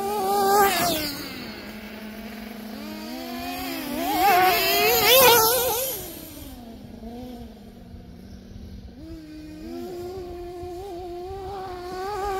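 A 1/8-scale nitro RC buggy's small glow-fuel two-stroke engine revving high and whining as the buggy races around the track. The pitch rises and falls with the throttle, loudest about half a second in and again from about four to six seconds in, when it passes close by.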